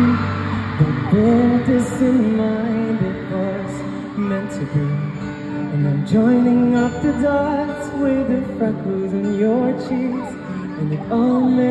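A male singer singing a melody live into a microphone over acoustic guitar accompaniment, heard from the audience through the venue's sound system.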